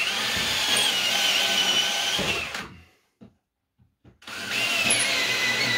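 Power drill boring up through the ceiling for pipe holes, run in two bursts of about two and a half seconds with a short pause between. Its motor whine holds fairly steady.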